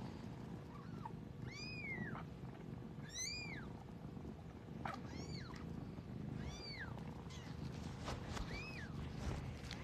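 Newborn Siberian kittens crying: five short, high-pitched mews, each rising and then falling in pitch, spread a second or two apart.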